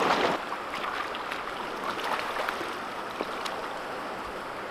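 Turbulent, foamy river current below a power-plant outflow, rushing steadily, with a brief louder rush right at the start and a few faint ticks.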